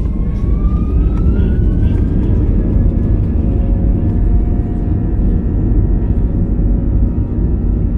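Airbus A320 jet engines spooling up, heard inside the cabin: a whine rises in pitch over the first few seconds and then holds steady above a loud, constant rumble.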